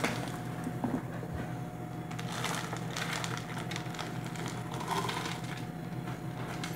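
Dry dog kibble poured from a cup into a dog bowl, the pieces rattling and clattering in a few short spells.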